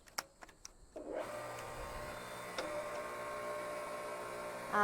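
A few metallic clicks, then from about a second in a hydraulic log splitter's pump starts running with a steady mechanical hum as the splitter is worked.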